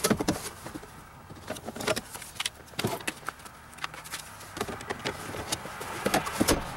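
Hands working at a car's glove box and cabin air filter housing: irregular plastic clicks, knocks and rattles, with a cluster at the start and another near the end.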